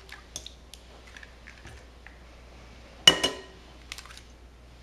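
An egg cracked against the rim of a glass mixing bowl: one sharp knock about three seconds in, the glass briefly ringing. Small crackles of eggshell being pulled apart come before and after it.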